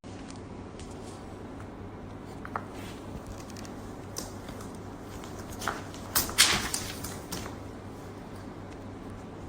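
Quiet room tone with a steady low hum, broken by a few soft clicks and rustles between about five and a half and seven and a half seconds in.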